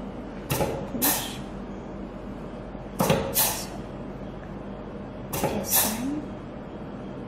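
Double-acting pneumatic cylinder worked by two push-button directional control valves: three times, a pair of short, sharp bursts of air and knocks about half a second apart, as a button is pressed, air vents and the piston rod shoots out or back. A steady low hum runs underneath.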